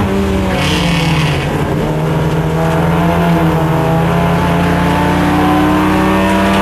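Holden Gemini race car's four-cylinder engine heard from inside the car while cornering. The revs drop as the driver comes off the throttle, a short tyre squeal comes about half a second in, then the engine note holds and rises steadily as the car accelerates out of the corner.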